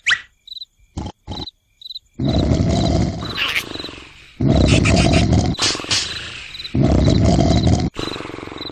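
Cartoon larva snoring loudly, three long rattling snores of about two seconds each, starting a couple of seconds in. Faint cricket chirps repeat underneath.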